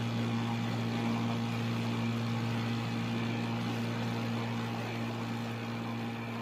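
Small boat outboard motor running at a steady speed, an even low hum that grows slightly fainter near the end.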